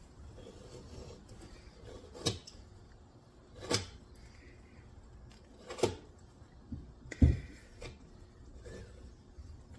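Sharp knife trimming excess leather off a vise jaw liner: a series of short, sharp cutting and tapping sounds, four louder ones spaced about one and a half to two seconds apart.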